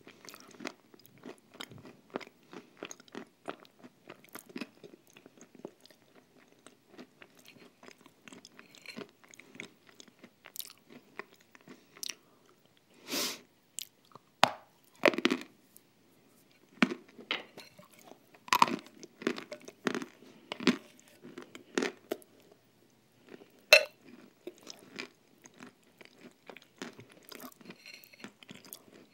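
Close-miked chewing of a thick cream mixed with nut crumb: wet mouth smacks and small crunches throughout, with a few louder crunching bites in the second half.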